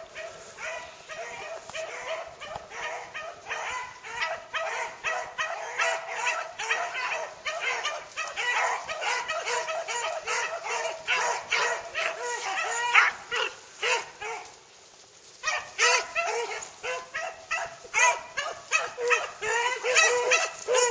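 A pack of beagles baying as they run a track, several voices overlapping in a continuous chorus of cries, with a brief lull about fourteen seconds in.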